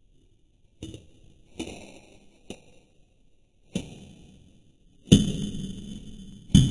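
Trigger switch of an old Black & Decker corded drill being worked apart by hand: a few separate sharp clicks and knocks, then two louder clinks near the end that leave a ringing metallic tail.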